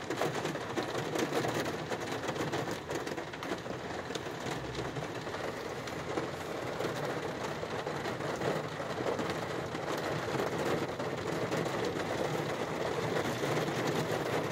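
Heavy rain drumming steadily on a car's roof and windshield, heard from inside the cabin as a dense patter of drops.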